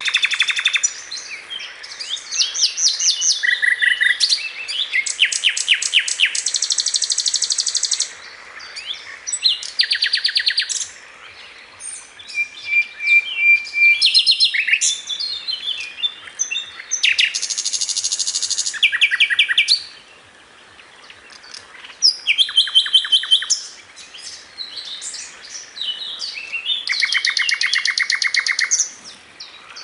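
Two birds singing, each in a different voice. Fast runs of evenly repeated notes lasting a second or two alternate with shorter, varied chirps and whistles, with a few brief pauses.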